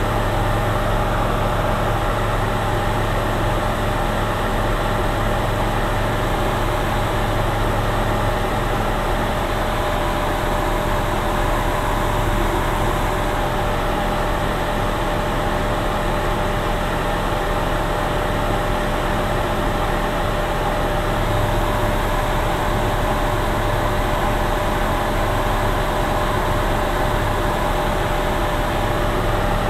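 Single-engine light aircraft's engine and propeller droning steadily, heard from inside the cockpit.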